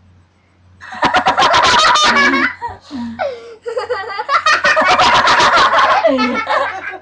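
Loud laughter from a few people, starting about a second in and going in long bursts with two short breaks. A low steady hum runs underneath.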